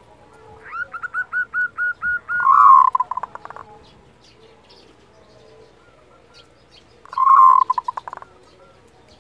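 Zebra dove (perkutut) calling its 'kerot': a run of about ten quick, evenly spaced notes that runs straight into a louder rolling, trilled coo, then a second short loud rolling coo near the end.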